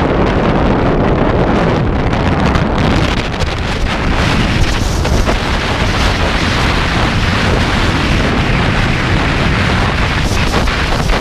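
Strong gale-force wind buffeting the camera microphone: loud, continuous rushing noise that swells and dips in gusts.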